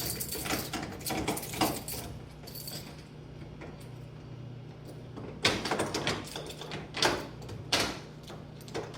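Clicks, knocks and clatter of a door and keys being handled, over a steady low hum. There is a short run of clicks at the start, a quieter stretch in the middle, and a string of sharper knocks and rattles from about halfway through.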